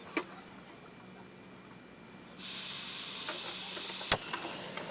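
Portable single-burner gas cartridge stove being lit: a light tap as the lid settles on the pan, then the gas valve opens about two and a half seconds in with a sudden steady hiss, and a sharp piezo igniter click about a second and a half later lights the burner, which keeps hissing.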